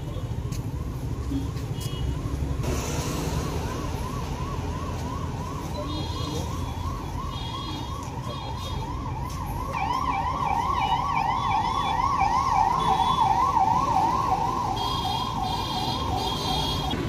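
Emergency vehicle siren in fast yelp mode, a rising-and-falling wail repeating about three times a second, growing louder about ten seconds in and cutting off near the end. Low traffic rumble underneath.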